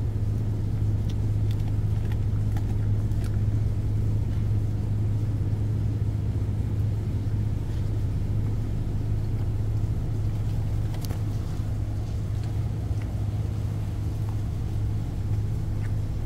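Steady low drone of a ship's machinery, a deep even hum that does not change, with a few faint clicks of a dog chewing food.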